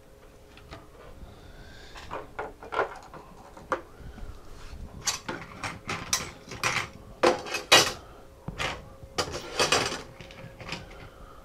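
Small screws and a screwdriver being picked up and handled: irregular metal clicks and clatters, heaviest a little past halfway and again near the end.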